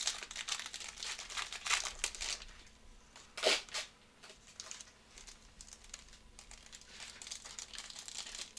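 Foil wrapper of a trading card pack crinkling and crackling in the hands, with one louder crackle about three and a half seconds in. Near the end more crinkling as a fresh pack is torn open.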